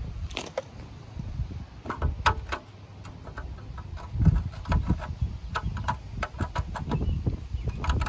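Metal hand tools clicking and clinking, a string of short sharp taps, as a socket or wrench is picked from a tool case and tried on a dirt-packed screw head on a mower engine. A low rumble runs underneath.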